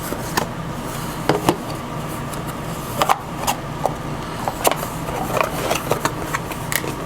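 Unboxed camera parts and packaging being handled and set down: scattered light clicks and knocks, several a second at times, over a steady low hum.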